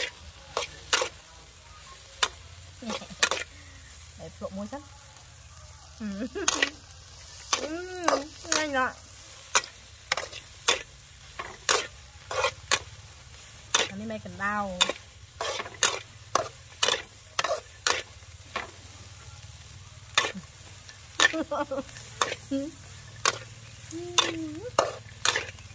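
Metal spatula scraping and clacking against a steel wok during stir-frying, with irregular sharp knocks every second or so over a frying sizzle. A few brief pitched squeals come through, about a third of the way in and again past the middle.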